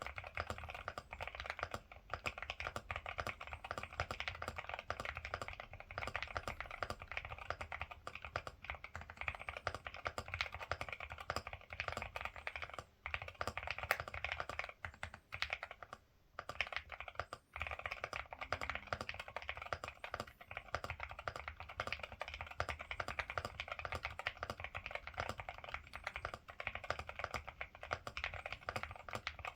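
Typing on a Ciddo V65 V2 mechanical keyboard with Akko Rosewood switches: a fast, continuous run of key clicks, broken by a few short pauses about halfway through.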